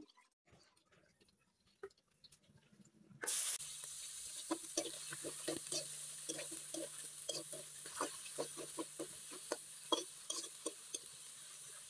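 Small shrimp going into hot oil in a wok: a sudden loud sizzle about three seconds in, then steady frying with repeated scrapes and taps of a spatula against the wok as they are stirred.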